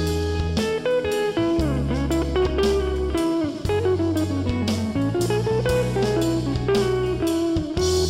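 Instrumental break of a pop song: a guitar plays a sliding melody over bass and a steady drum beat.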